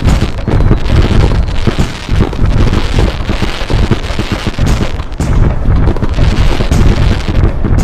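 Fireworks sound effect: a dense, unbroken run of booms and crackling bangs.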